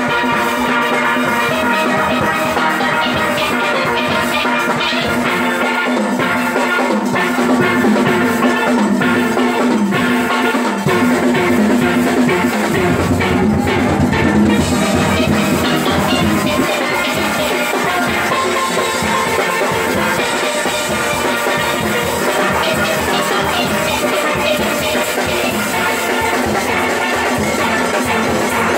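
Steelband playing live: many steel pans ringing out a tune together, with drums keeping the beat.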